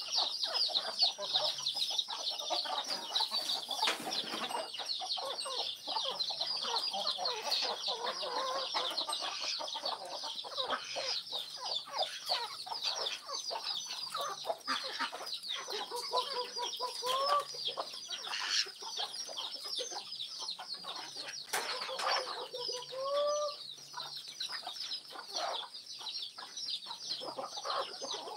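Farmyard chickens clucking and calling, over a steady chorus of quick, high, falling chirps. Twice in the second half a short rising call stands out.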